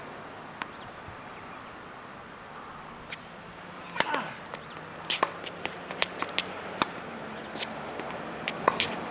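A tennis ball bounced on a hard court before a serve, then about four seconds in the sharp pop of the serve struck with the racket, followed by a scatter of quick taps and pops as the point is played out.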